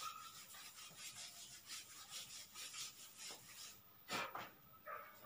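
Blackboard duster wiping chalk off a blackboard: faint repeated rubbing strokes, several a second, with a louder brief noise about four seconds in.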